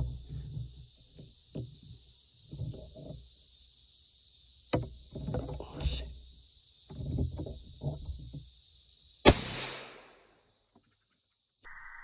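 A steady high insect drone, like cicadas or crickets, with irregular low rustling and knocking, a sharp click about five seconds in and a loud thump about nine seconds in. The sound cuts off near the end.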